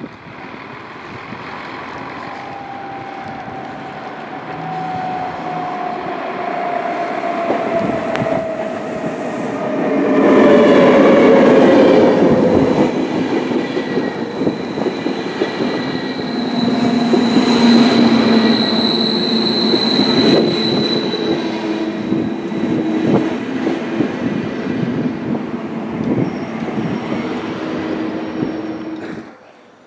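Double-deck electric passenger train approaching and running through the station, with a slowly falling whine as it nears, then loud wheel rumble and clatter as the coaches pass and a high squeal partway through. The sound cuts off abruptly near the end.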